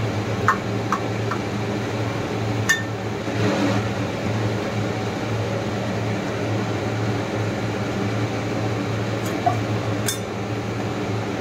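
Steel ladle clinking against a stainless steel cooking pot while curry is stirred and served: a few sharp clinks in the first three seconds and one more near the end. Under them runs a steady hum from a kitchen appliance.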